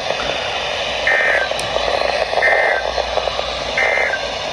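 Weather radio receiver hissing with static, with three short high beeps about 1.3 seconds apart.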